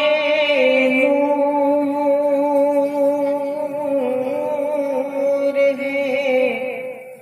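A man's voice singing one long held note of an Urdu naat, unaccompanied. The pitch wavers and steps down slightly, dips near the end, then the note stops.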